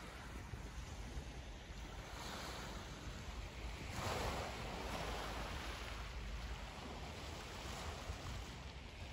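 Small waves washing gently onto a pebble beach from a calm sea, with wind rumbling on the microphone. The wash swells louder about four seconds in.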